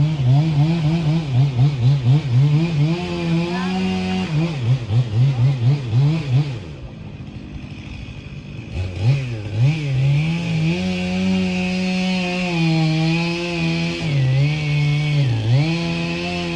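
Two-stroke chainsaw revved in quick, repeated bursts, then held at high revs with its pitch dipping twice near the end. The sound cuts off suddenly at the end.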